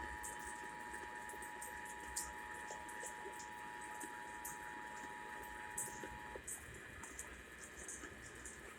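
Emergency Alert System attention signal, its steady two-tone alarm sounding faintly and cutting off about six seconds in, leaving a low steady hiss.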